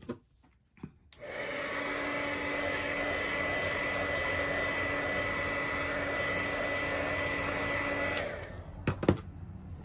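Small electric blower motor running steadily with a high whine for about seven seconds, then switched off; a couple of light clicks follow.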